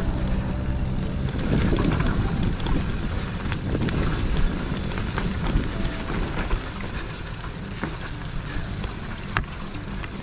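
Mountain bike riding a dirt singletrack: a steady low rush of wind on the microphone with the rolling of the tyres, and scattered clicks and rattles from the bike over the bumps.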